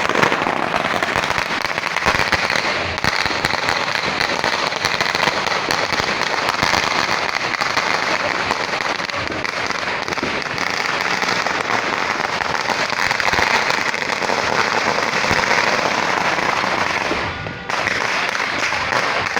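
A dense, continuous barrage of firecrackers, with countless pops overlapping into a steady loud crackle. It drops briefly near the end.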